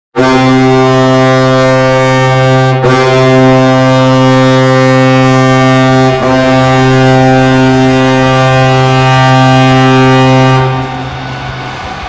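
Colorado Avalanche arena goal horn blaring a deep, steady air-horn tone, held almost continuously with two very brief breaks. It cuts off near the end, leaving a quieter, noisy background.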